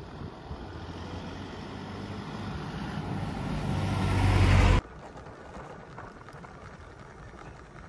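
A motor vehicle's engine hum and road noise growing steadily louder as it approaches, then cutting off suddenly about five seconds in, leaving a quieter steady background noise.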